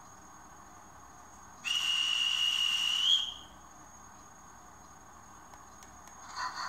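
Sound function of a Märklin NS E186 model locomotive playing through its small onboard speaker: one high, steady whistle tone lasting about a second and a half, with a slight rise just before it cuts off. Another sound from the model starts just before the end.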